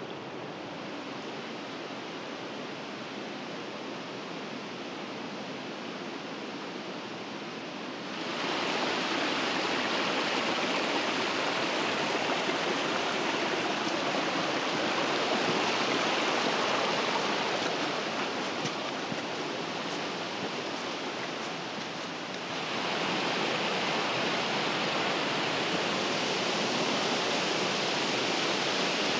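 Steady rush of running water. It turns louder and brighter about eight seconds in, eases slightly, and rises again a few seconds before the end.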